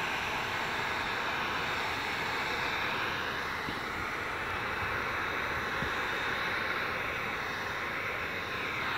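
Handheld heat gun running steadily, its fan blowing hot air onto automotive window tint film to shrink it to the curved rear glass. An even, unchanging rush of air.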